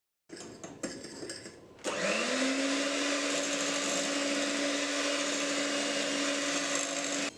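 Electric hand mixer beating cake batter in a glass bowl. After a quieter patch of rattling, the motor spins up about two seconds in with a short rising whine, runs at a steady high speed, then cuts off suddenly near the end.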